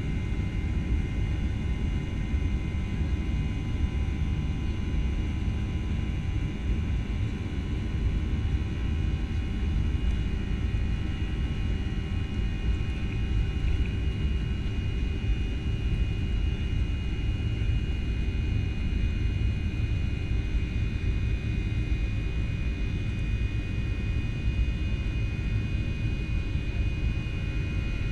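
Boeing 737-800's CFM56 jet engines running steadily as the airliner rolls along the runway, heard inside the cabin: a steady low rumble with a steady high whine over it.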